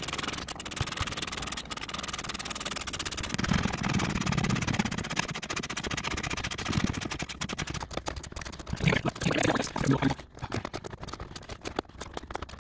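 Hand ratchet with a 10 mm socket clicking rapidly as the bolts that hold an airbag module are driven in.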